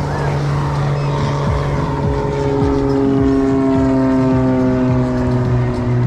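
An engine drones steadily, its pitch falling slowly as it passes.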